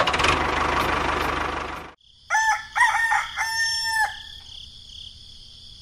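A small electric motor whirs steadily for about two seconds and cuts off. A rooster then crows once, in three parts ending in a long held note.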